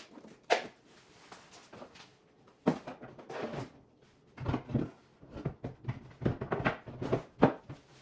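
Pantry items and containers being handled and set down: irregular knocks and clatters, the sharpest about half a second in, near three seconds and shortly before the end.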